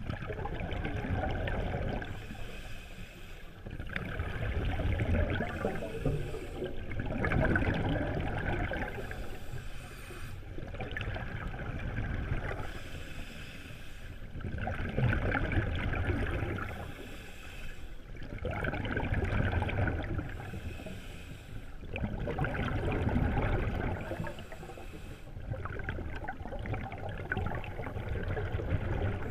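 Scuba diver breathing through an open-circuit regulator underwater: a slow cycle of inhaled hiss and exhaled bubbles rumbling past the camera, one breath every three to four seconds.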